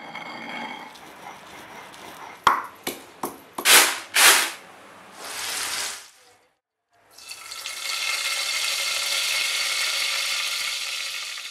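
Hot oil sizzling in a frying pan, a steady hiss through the second half. Earlier there is a run of loud, sharp pops and cracks, about two and a half to four and a half seconds in.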